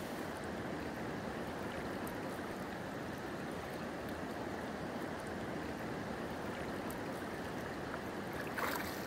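River water rushing steadily over stones. Near the end comes one short splash as a brown trout is let go from the hand into the current.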